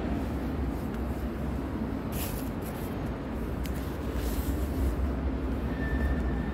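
Steady low rumbling background noise, with a couple of short hissy scuffs about two and four seconds in.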